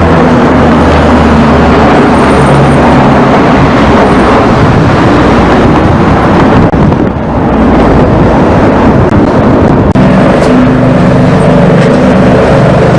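Loud, steady drone of C-130 Hercules four-engine turboprops flying over in formation, a low engine hum over dense noise. The pitch of the hum changes abruptly about ten seconds in.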